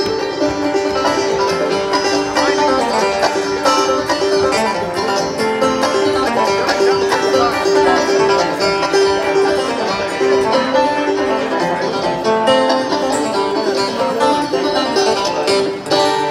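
Clawhammer banjo played live with an acoustic guitar: a quick, steady bluegrass-style tune coming over a concert sound system.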